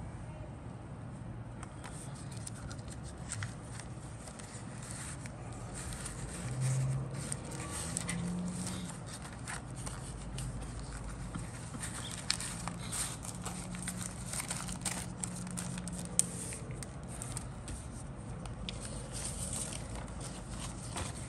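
A clear zip-lock plastic bag crinkling and crackling in irregular bursts as a paper decal sheet is handled and slid into it.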